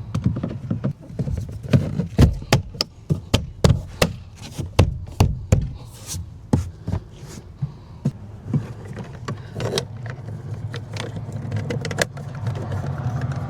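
A quick, irregular run of sharp clicks and knocks, about three a second, then only a few scattered ones later on: plastic door trim and fasteners being snapped and fitted back onto a car door panel.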